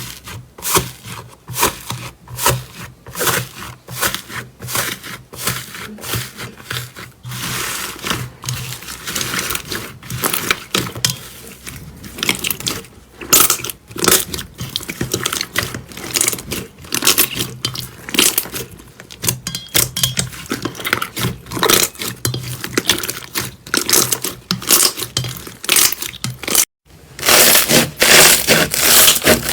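Slime being squeezed and worked by hand, a dense run of sticky crackles and clicks. Near the end it breaks off for a moment and gives way to a louder, denser crunching.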